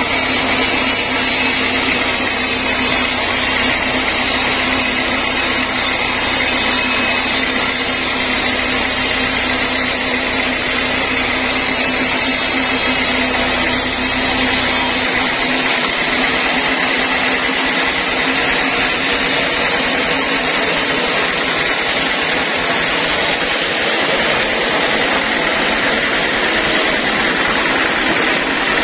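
Band sawmill running steadily with a constant high machine whine as slabs are cut. The low rumble underneath drops away about halfway through.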